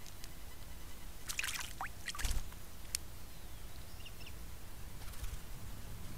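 Sacred kingfisher plunging into a water trough to bathe: a short run of splashes about a second and a half in, ending in one heavier splash, then a single sharp click.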